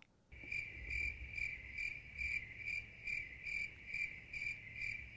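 Cricket chirping sound effect, a steady chirp repeating about three times a second. It is the comedy cue for a joke met with silence.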